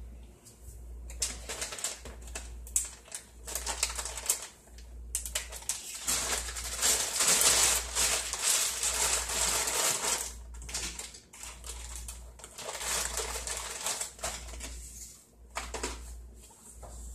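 Plastic bag crinkling and rustling as it is handled, a dense run of crackles and small clicks that builds to its loudest about midway and thins out near the end.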